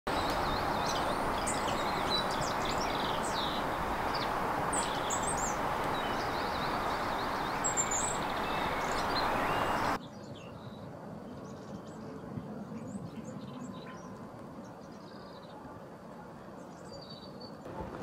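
Garden birds chirping and singing in short calls and trills over a loud, steady background hiss. About ten seconds in, the background drops abruptly and the birdsong carries on more faintly.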